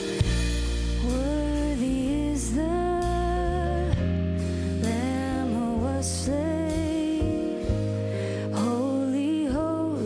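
Church worship band playing a slow song: a sung melody in phrases over steady bass, guitar and keyboard.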